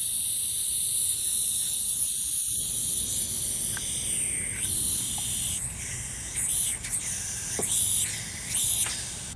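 Compressed air hissing from a leak on an air compressor. The hiss is steady and high at first, then swells and fades in uneven surges from about halfway through.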